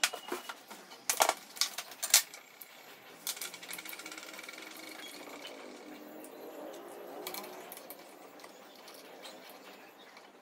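Loose metal bolts and plastic parts of an angle grinder stand clacking and knocking on a wooden tabletop as they are handled during assembly, several sharp knocks in the first two seconds. After that, a steadier run of fine rapid ticks with a faint buzz.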